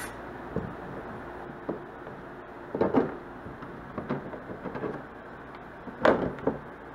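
Hard plastic scraping and clunking as a kayak's hatch ring is worked loose and pulled off the deck, breaking free of its old sealant. Irregular scrapes and knocks, the loudest about three seconds in and again about six seconds in.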